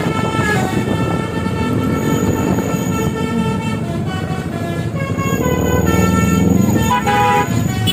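Bus telolet musical air horn (basuri) playing a tune of held notes that step in pitch, with quicker short notes near the end, over the bus's engine running.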